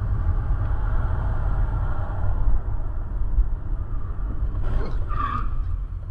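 Steady low road and engine rumble picked up by a dashcam inside a moving car. About five seconds in comes a brief crash as a car and a van collide ahead.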